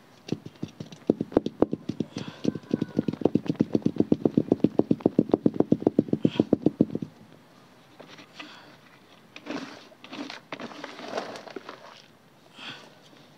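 Hands firmly patting and tamping down potting soil around a freshly transplanted plant's base in a pot: a quick, even run of dull thumps, about seven a second, stopping about seven seconds in, followed by a few softer rustles and scrapes of soil being pressed.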